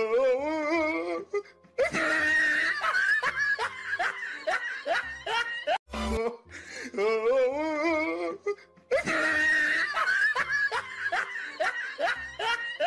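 Laughter over music: the same bursts of laughing repeat every few seconds, like a looped laugh track.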